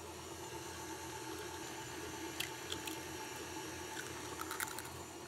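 KitchenAid stand mixer running steadily, its paddle beating a wet butter-and-sugar batter as eggs go in, with a few light ticks along the way.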